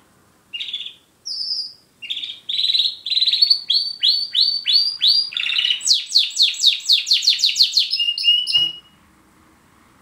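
Border canary singing one long, loud song phrase: a few separate notes at first, then rapid trills of repeated notes, each run at a different pitch. The song stops short about a second before the end.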